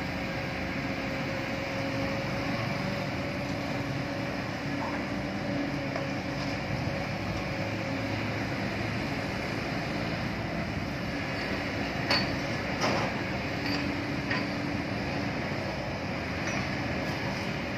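Kobelco hydraulic excavator's diesel engine running with a steady hum while it loads a dump truck, with a few sharp metal clanks about twelve to fourteen seconds in.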